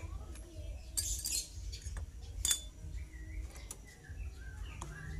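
Scattered metal clinks and knocks as a motorcycle clutch assembly is handled and worked loose by hand with a spanner. There are a handful of separate clinks, the sharpest about two and a half seconds in, over a low steady hum.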